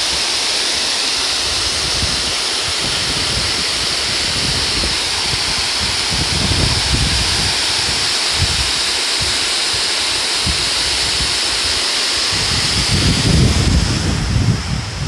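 Running water rushing steadily, as from a stream or small waterfall. Near the end, gusts of wind buffet the microphone with a low rumble.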